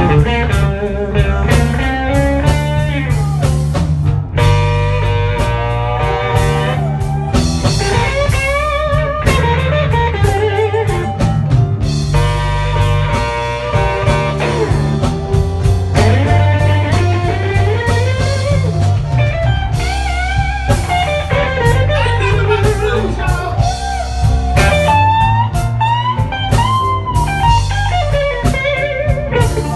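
Live blues band playing loud: an electric guitar leads with bent, sliding notes over bass guitar and a drum kit.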